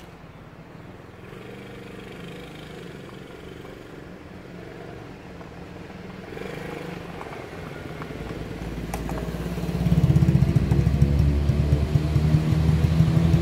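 110cc quad bike's small four-stroke single-cylinder engine running as the quad is ridden toward the microphone. It grows steadily louder and is loudest over the last few seconds as it comes close.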